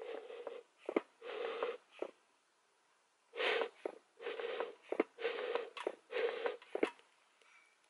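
Bee smoker's bellows being pumped to stoke the fire: a series of short breathy puffs, about one a second with a pause of a second or so after the first two, and light clacks between the strokes.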